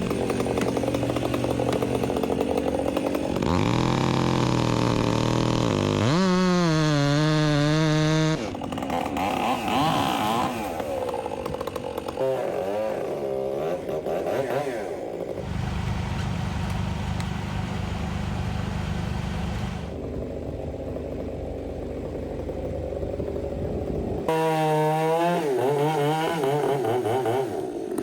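Gas chainsaws running and revving as they cut, the pitch rising and falling. The sound changes abruptly several times, and a steadier low drone takes over for several seconds in the middle.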